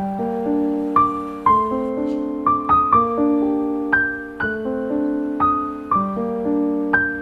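Background music: a slow, gentle piano melody, with notes struck about twice a second and left to ring.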